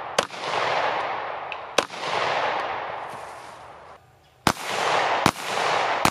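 9mm (9x19mm) handgun shots, each trailing a long rolling echo: two shots about a second and a half apart, then after a gap three more in quicker succession near the end.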